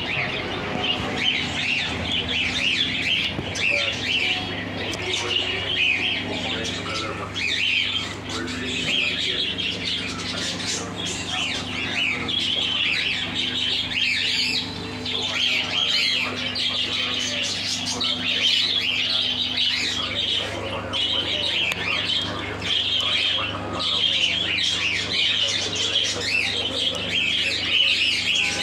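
Many small birds chirping and squawking continuously in a busy, overlapping chatter, over a steady low hum.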